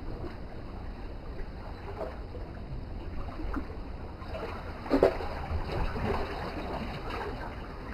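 Small waves lapping and splashing against shoreline rocks, over a steady low wind rumble on the microphone, with one brief louder burst about five seconds in.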